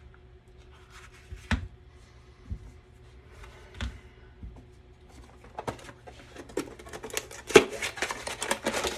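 Clicks and knocks of an inflator/deflator's small parts being handled and fitted, a few scattered at first, then many close together for the last couple of seconds, the sharpest one about seven and a half seconds in.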